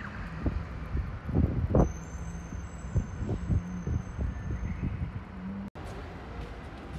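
City street traffic: a bus engine running close by, a steady low hum that edges up in pitch near the end, over rumble and a few low thumps. It cuts off suddenly about two-thirds of the way in, leaving quieter street noise.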